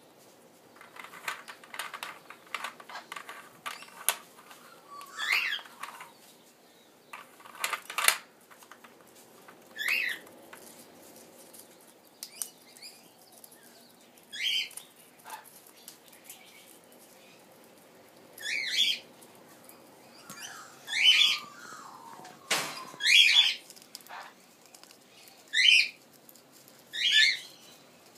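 Female red-sided Eclectus parrot working a plastic foraging toy: a run of clicks and knocks from beak and plastic cones near the start, with a few more knocks later, then short falling calls repeated every couple of seconds, about nine of them.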